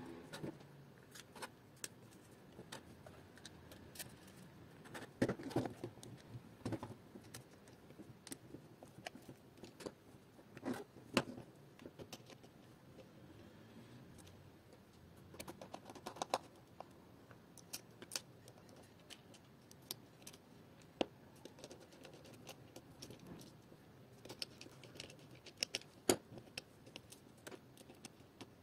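Scattered light clicks, taps and scrapes of an acrylic robot chassis and its small parts being handled by hand while a caster wheel bracket is fitted, with a few small clusters of knocks.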